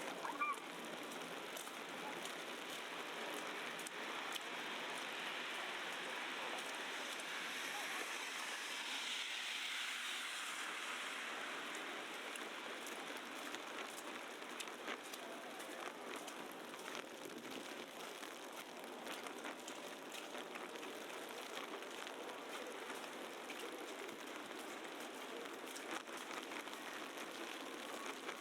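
Steady hiss of a wet, snowy city street during snowfall, with faint scattered ticks and murmurs. A louder swish swells and fades about ten seconds in.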